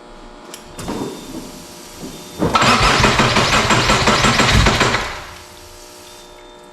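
Subaru SVX's 3.3-litre EG33 flat-six being started: a short stir about a second in, then a loud spell of running from about two and a half seconds in that fades out around five seconds.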